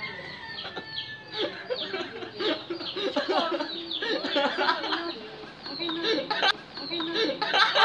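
Chickens clucking and cheeping, many short high chirps that fall in pitch, repeated over and over.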